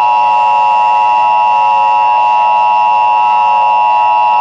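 Emergency Alert System attention signal: a loud, steady electronic two-tone alert held at an even pitch and level.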